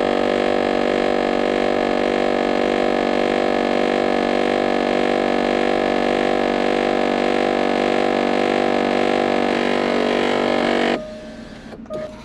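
Jaguar XJL front sunshade's electric drive motor running with a loud, steady buzzing drone that does not change in pitch, then cutting off abruptly near the end. The sunshade is faulty: it retracts but will not stop or close, and the owner suspects the motor runs on a timer.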